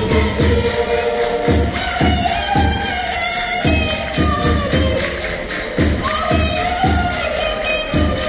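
Live Portuguese folk dance music: an accordion melody over a steady drum beat about twice a second, with tambourine-like jingles and voices singing.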